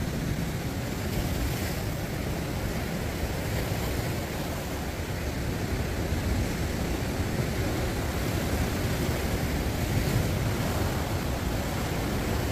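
Sea surf washing against shore rocks, a steady rushing with wind buffeting the microphone.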